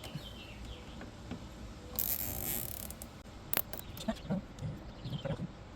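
Plastic zip tie being pulled tight: a short ratcheting zip about two seconds in, followed by scattered clicks and taps of handling the tie and wires.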